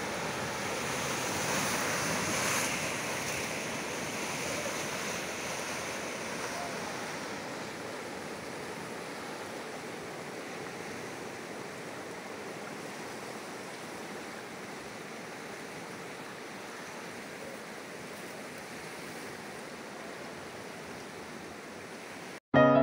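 Steady rushing of a swollen, muddy river in flood, pouring over a ledge and running fast past the bank; a little louder in the first few seconds, then easing slightly. It cuts off near the end into piano music.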